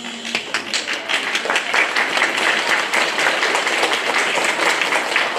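An audience applauding, the clapping building up within the first second and then holding steady.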